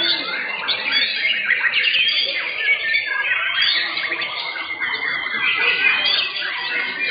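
Several caged white-rumped shamas (murai batu) singing at once: a dense tangle of fast whistled phrases, trills and sliding notes.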